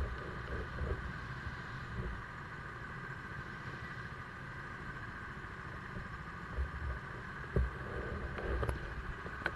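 Steady mechanical hum with a low rumble in an indoor go-kart pit lane, broken by a few short knocks and bumps near the end.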